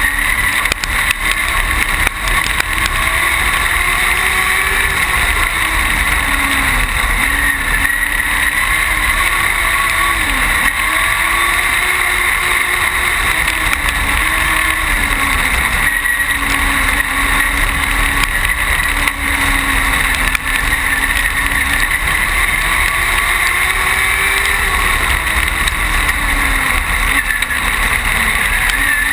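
Dwarf race car's engine heard on board at racing speed on a dirt oval. It revs up along the straights and eases off into the turns, so its pitch climbs and drops every several seconds, under heavy wind and road noise.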